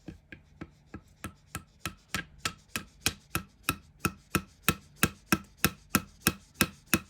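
Rapid, evenly paced knocking, about three strikes a second that grow louder, typical of a hammer tapping on flat-pack furniture parts during assembly.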